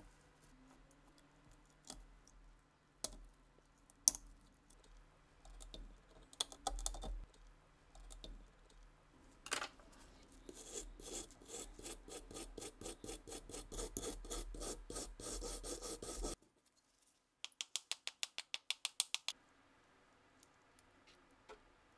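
Flaky rust scale on a heavily corroded Walther P38 pistol crackling and crumbling under gloved hands. Scattered small clicks come first, then several seconds of dense, gritty scraping. After a sudden break, a quick run of about ten small taps follows.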